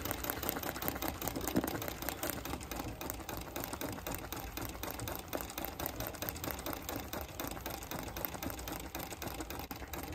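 Treadle sewing machine running at a steady speed, its needle stitching a free-motion running stitch through layered water-soluble paper in an embroidery hoop: a fast, even clatter of the mechanism.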